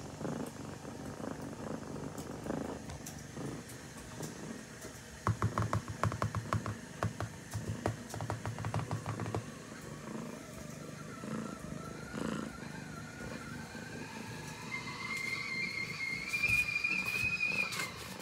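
Domestic cat purring, loudest in a stretch of rapid pulsing about a third of the way in. From about two-thirds in, a long, thin cat cry rises slowly in pitch, is loudest near the end, and stops abruptly just before the end.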